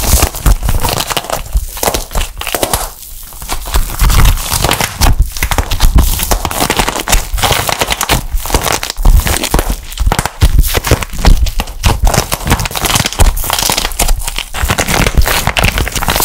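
Hardened plaster-clay shell cracking and crackling into flakes as it is squeezed in the hands, a dense run of small crisp cracks with a brief lull about three seconds in.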